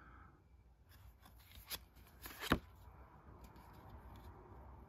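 Plastic playing cards being handled and flipped through, with light rustling and a few sharp card snaps, the loudest about two and a half seconds in.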